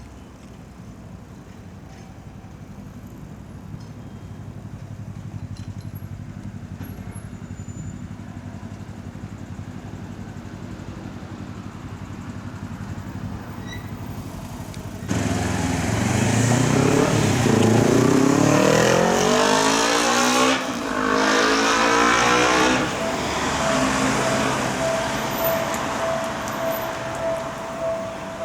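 Low steady traffic hum at a road and railway level crossing. About halfway through, a vehicle comes in suddenly and loudly and accelerates away, its pitch rising for several seconds. A steady high tone starts near the end.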